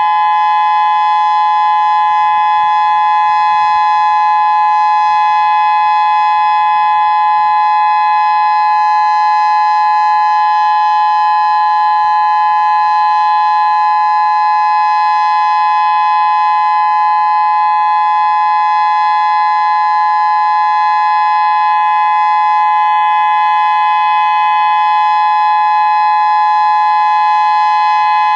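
Federal Signal Modulator 6024B electronic outdoor warning siren, a 24-driver speaker array, sounding its Full Alert signal. It is a loud, steady two-note tone that holds its pitch without rising or falling.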